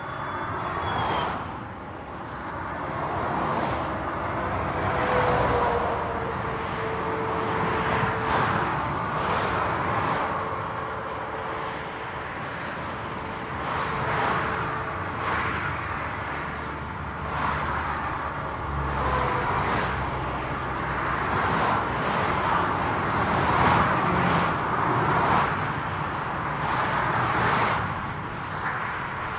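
Highway traffic: the steady tyre-and-engine rush of vehicles passing one after another, each swelling and fading within a couple of seconds. A faint steady hum runs under it through the middle.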